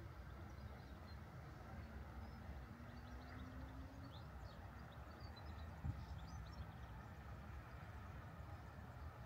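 Quiet open-air park ambience: a steady low rumble under faint, scattered bird chirps, with one short soft thump about six seconds in.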